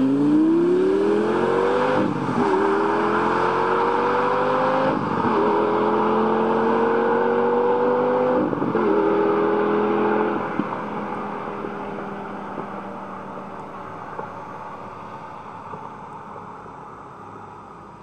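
Lamborghini Gallardo V10 accelerating hard through the gears, its engine note rising and dropping at upshifts about 2, 5 and 8.5 seconds in. It then holds a steady note and fades gradually away.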